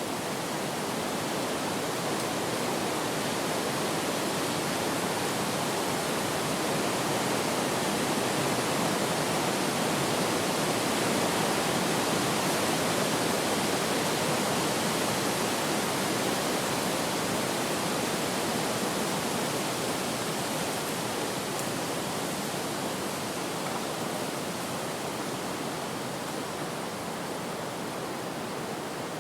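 Wind blowing as a steady rushing noise that slowly swells to its loudest about a third of the way through, then eases off again.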